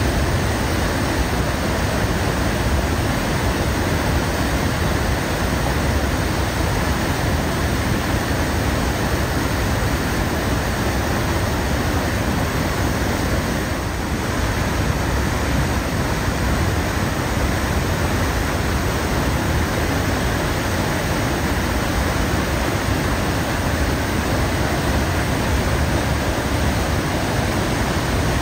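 A loud, steady rushing noise spread evenly from deep to high pitches, with no breaks or separate events.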